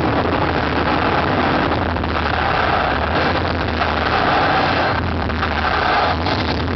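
Loud rumbling sound effects over a stadium PA, with a steady deep drone underneath and a cheering crowd, recorded heavily overloaded.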